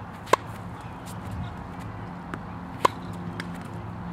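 Tennis ball struck by a racket twice, about two and a half seconds apart, each a short sharp hit with a brief ring. Fainter ticks come between the hits.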